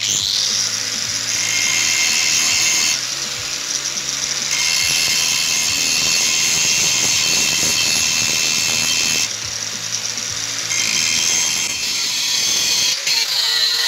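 Angle grinder with an abrasive disc grinding the hard, already tempered steel of an old chainsaw bar: a steady high-pitched grinding whine. It eases twice as the contact lightens and cuts out briefly near the end.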